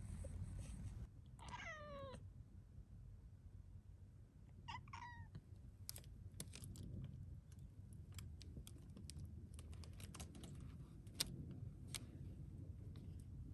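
Calico cat meowing in a pleading way, wanting out at the window: one long meow that falls in pitch about a second in, then a short double meow near five seconds. After that come scattered light clicks and taps.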